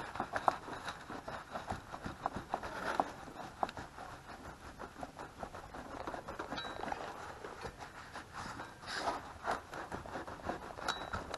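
Gloved hands working a Mikuni carburetor loose from a Suzuki Quad Runner 160's engine, making soft scraping, rubbing and light clicking of metal and rubber. There is a slightly louder scrape about nine seconds in.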